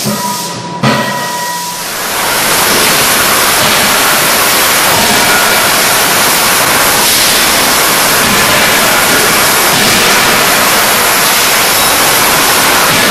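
Two knocks in the first second, likely from a trimming press, then a loud, steady rushing hiss from about two seconds in, with no clear hammer strikes in it.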